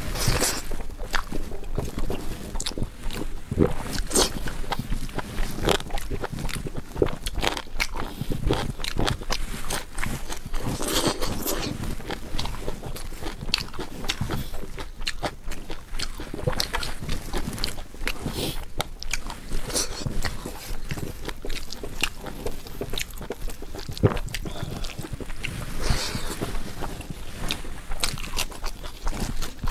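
A person chewing and biting food close to the microphone: a continuous, irregular run of crunches, clicks and wet mouth sounds.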